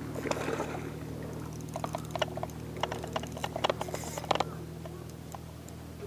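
Spinning reel and rod being worked as a hooked walleye is reeled up: scattered light clicks and taps over a steady low hum.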